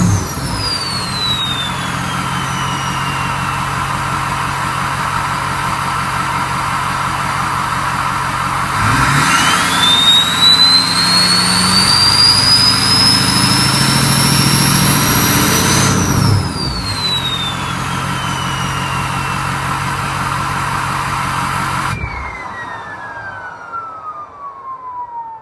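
Ford 6.0 Powerstroke V8 turbodiesel with an aftermarket Powermaxx turbo and straight exhaust, its loud turbo whistle falling at idle, then climbing and holding high as the engine is revved for several seconds before sliding back down. Near the end the engine cuts out and the whistle keeps dropping as the turbo spins down.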